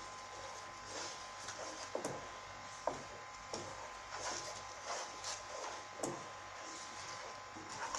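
Wooden spoon stirring thick masala paste as it fries in a steel pot, scraping the bottom and sides with irregular knocks against the metal.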